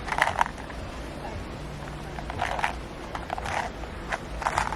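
Tic Tac mints rattling in their small plastic box as it is handled and shaken, in a few short, irregular rattles.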